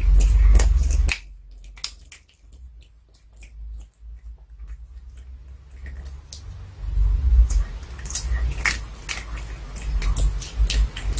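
Pomeranian chewing and crunching a duck cartilage treat close to an earphone microphone: gnawing with many sharp, crisp crunches. Heavy low thuds come near the start and again through the second half, with a quieter stretch of chewing between.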